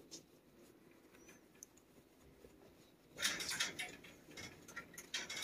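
Scratchy rustling and scuffing as a thick leather protective glove rubs and strokes against a cat's fur and face, in short irregular bursts that start about three seconds in after a quiet stretch with a few faint clicks.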